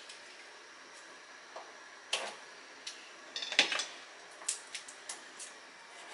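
Scattered light clicks and knocks of kitchen items and containers being handled on a counter, with one sharper knock about three and a half seconds in.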